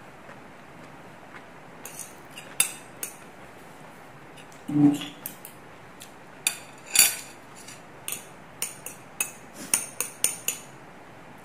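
Chopsticks and a fork clinking and scraping against ceramic noodle bowls: a run of sharp clicks that starts about two seconds in and turns more frequent in the second half. A short low hum comes about midway.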